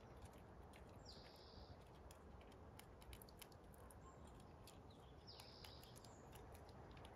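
Near silence with faint, scattered crisp clicks of a gray squirrel gnawing, and two short high bird notes, about a second in and about five seconds in.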